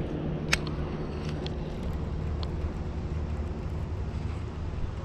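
A sharp click about half a second in, then a few faint ticks, from a baitcasting reel as a lure is cast and the reel is engaged. A steady low motor hum runs underneath.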